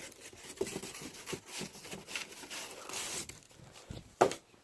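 Rustling and handling of ceiling fan packaging as parts are put back into the box, with a sharp knock about four seconds in.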